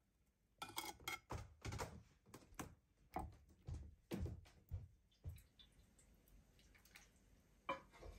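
Metal spatula knocking and clinking against a frying pan and a ceramic serving dish as pieces of fried chicken are lifted and laid on the plate. It is a quick run of about a dozen knocks, then a pause and one sharper knock near the end.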